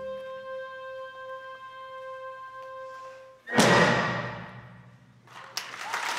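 A concert band holds a soft sustained chord, then ends with a sudden loud full-band hit and a cymbal crash that rings away over a couple of seconds. Applause breaks out near the end.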